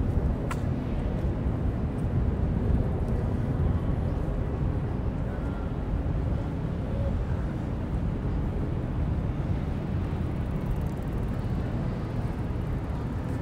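Steady low rumble of outdoor city street ambience, with a single sharp click about half a second in.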